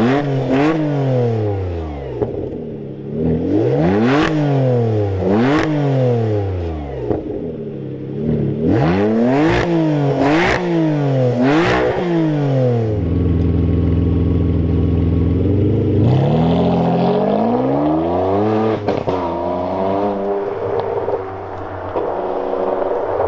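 Ferrari 612 Scaglietti's V12 revved through a Quicksilver aftermarket exhaust: a string of quick throttle blips, each rising sharply and falling away, then held at a steady higher speed for a few seconds before being revved up again and let drop.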